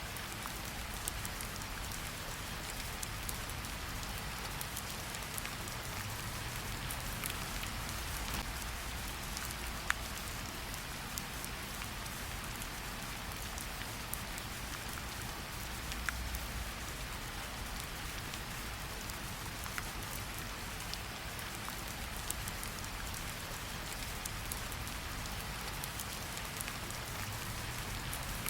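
Steady rain falling, a constant hiss with scattered sharp drips of individual drops hitting a surface.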